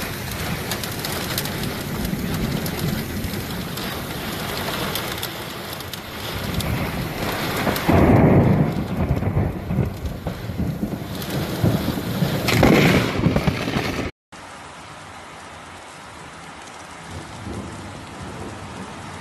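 Heavy rain pouring in a strong wind, with two loud low surges, one about eight seconds in and another a few seconds later. After a sudden cut the rain goes on more quietly and evenly.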